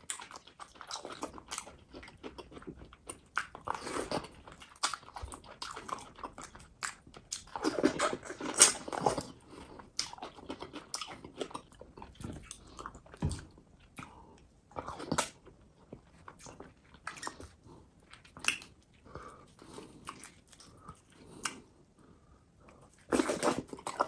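Close-miked eating of fufu: wet chewing, biting and mouth clicks in irregular bursts, a louder cluster about a third of the way in and another near the end.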